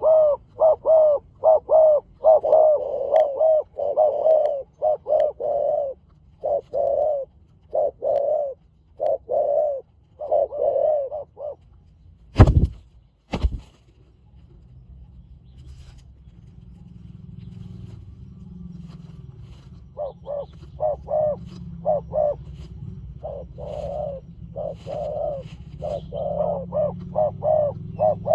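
Spotted doves cooing in long runs of short, quick coos. The cooing pauses about halfway, and two sharp knocks about a second apart come in the gap. The cooing then resumes over a low rumble.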